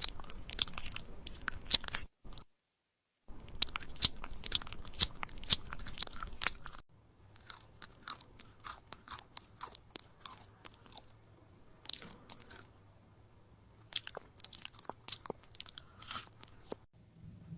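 Puppies crunching and chewing food: rapid crisp crunches and bites, in a few short clips with a brief silent break between them.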